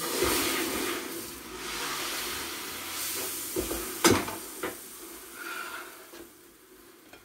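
A sizzling hiss in the kitchen that starts suddenly and fades after about four seconds, with a few clatters of pans in the middle, the loudest about four seconds in.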